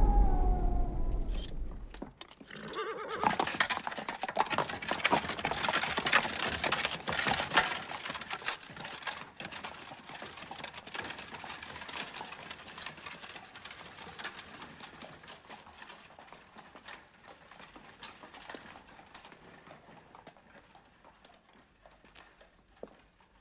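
Horse hooves clip-clopping in a quick, dense run that fades away steadily over about fifteen seconds as the horse moves off.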